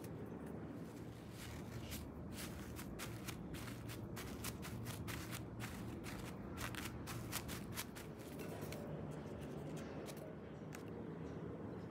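Kitchen food-preparation handling sounds: a run of light taps and clicks, thickest in the middle, over a steady low hum.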